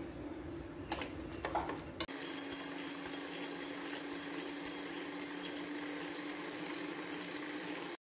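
A few knocks, then from about two seconds in a Kenwood electric hand mixer runs with a steady hum as its beaters whip cream in a glass bowl.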